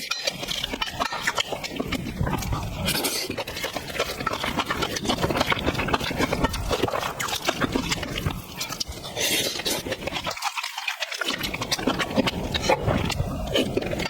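Close-miked eating sounds: wet chewing and lip-smacking, a fast, dense run of small clicks, with brief louder rushes about three and nine seconds in.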